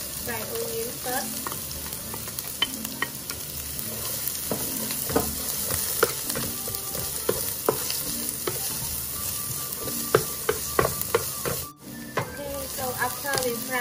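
Chopped onion and garlic sizzling in hot oil in a nonstick frying pan, with a wooden spatula stirring and tapping against the pan in many short clicks and scrapes. The sound breaks off for a moment near the end.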